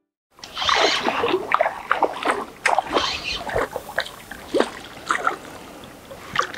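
A small hooked fish thrashing at the water's surface close to the bank on a spinning line, making a run of irregular splashes that start about a third of a second in.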